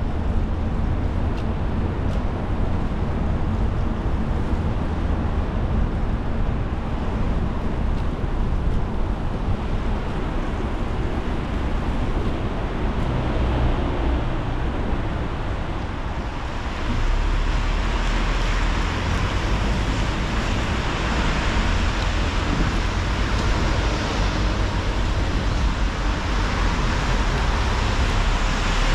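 Car driving on a wet road, heard from inside the cabin: a steady low road rumble with tyre hiss, the hiss growing louder a little past halfway through.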